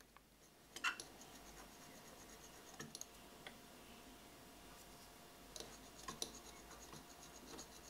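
Faint scratches and light clicks of a steel scriber drawing reference marks across the marker-inked bevel of a steel plane blade, guided along a small steel square. The strokes come in a few short, scattered groups.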